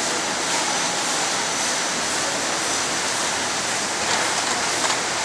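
Steady hissing din of canning-line machinery and conveyor running, with a faint high whine and a few light clicks near the end.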